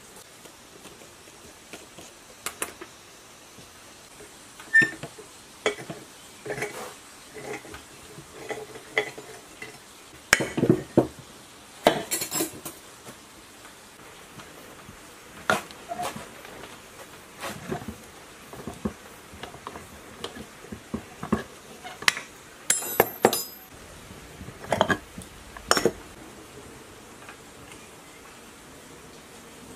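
Irregular clinks and knocks of steel hand tools and metal parts being handled on a workbench while a rusty pump is taken apart, with a socket wrench working on the impeller nut. The clatter comes in scattered strikes, densest a little before halfway and again about three quarters through.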